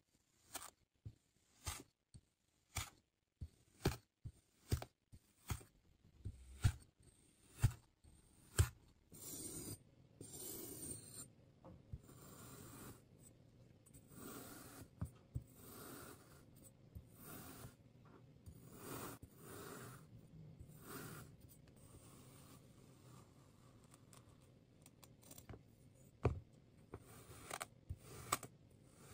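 Kinetic sand being cut and crushed: short crisp crunches about once a second for the first nine seconds, then a softer, continuous gritty scraping and crumbling that swells and fades, with a few sharp crunches again near the end.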